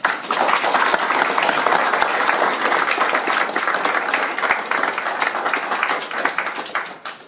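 Audience applauding, many hands clapping together, starting suddenly and tapering off near the end.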